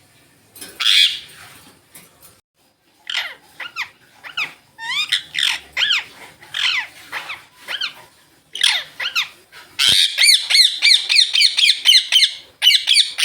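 Indian ringneck parakeets calling: a harsh squawk about a second in, then a run of loud falling screeches, and near the end a fast chatter of about five notes a second.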